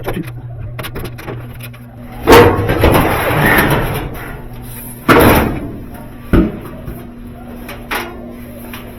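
Sheet-metal bangs and clunks of a GE dryer's cabinet being opened up to get at the heating element: a loud bang about two seconds in followed by a couple of seconds of scraping, then three sharper knocks, over a steady low hum.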